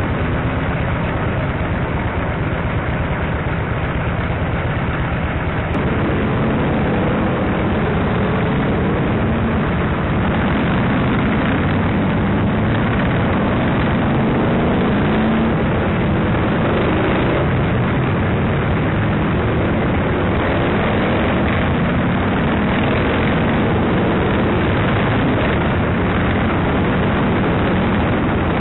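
Touring motorcycle engine running steadily at low speed, recorded from the bike itself, with the engines of other motorcycles in the procession around it.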